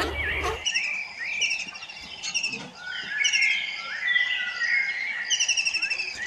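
Several songbirds calling together: many short overlapping chirps and whistled notes, with a fast trill of repeated notes near the end.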